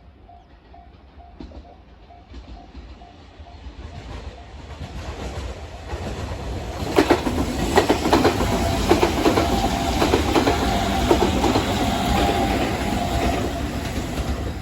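Level-crossing bell ringing in a quick steady rhythm while a Chikuhi Line train approaches, growing louder. From about seven seconds in the train passes close by, its wheels clattering rhythmically over the rail joints.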